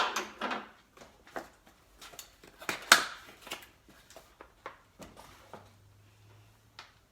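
Irregular clicks and knocks of hand tools and parts being handled while working on the engine, loudest at the start and again about 3 seconds in, then thinning out.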